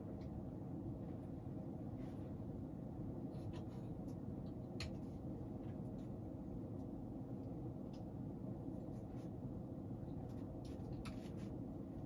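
Quiet room tone: a steady low hum with a faint tick or soft rustle every second or so.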